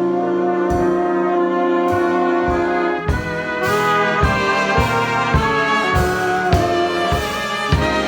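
Big band brass section, with trumpets and trombones, playing sustained chords in a slow jazz ballad. After about three seconds the harmony starts to move, over regular low beats.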